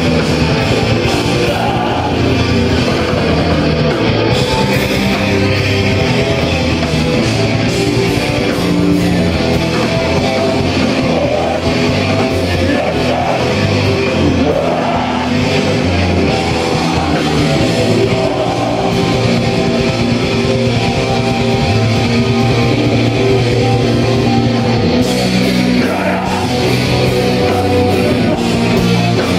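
Metal band playing loud and without a break: distorted electric guitar, bass guitar and drums.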